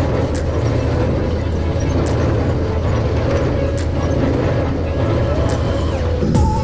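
Tractor engine running steadily, with a faint regular tick from the driven machinery about every second and a half to two seconds.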